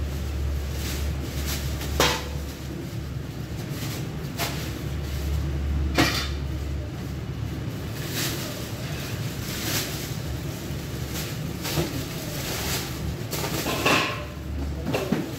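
Scattered sharp knocks and clatter, five or so spread over the stretch, the loudest about two and six seconds in, over a steady low hum.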